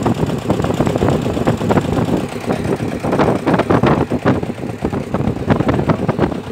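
Engine of a motorised river ferry boat running while under way: a loud, uneven chugging.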